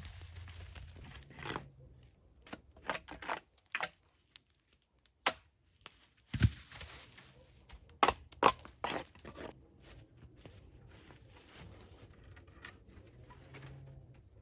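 Irregular sharp knocks and cracks, about a dozen over eight seconds, the heaviest a dull thump about six and a half seconds in.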